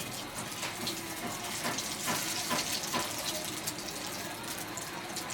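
Marinated boneless chicken pieces sizzling in hot oil in a kadai: a steady sizzle with scattered crackles and pops, busiest in the middle.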